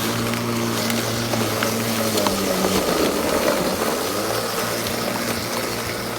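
Bosch CityMower 18 battery lawnmower's electric motor and blade running with a steady hum over a rustling haze of small ticks. The pitch sags about two seconds in and climbs back a couple of seconds later.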